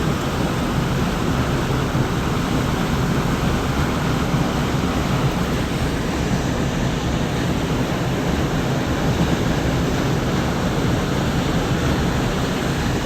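Steady wind rumbling and buffeting on the microphone, an even rushing noise that cuts off suddenly near the end.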